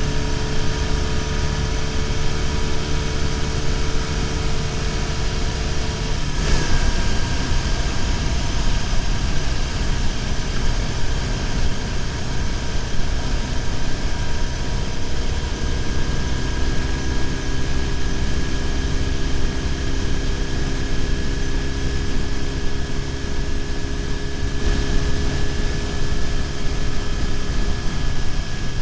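BMW R1150GS's boxer-twin engine running at cruising speed, heard from a bike-mounted camera under steady wind and road noise. The engine note shifts about six seconds in.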